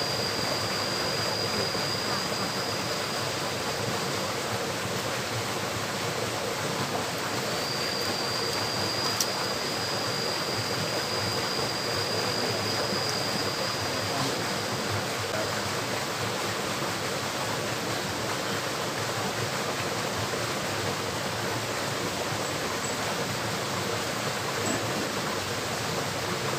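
Steady rush of flowing water from a small stream, with a thin high whine in the first few seconds and again from about eight to fifteen seconds in, and a single sharp click about nine seconds in.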